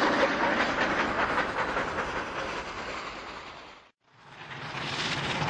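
Large steam locomotive hauling a freight train: a dense noise of exhaust and wheels on rails. It fades away and breaks off to silence for a moment just under four seconds in, then rises again.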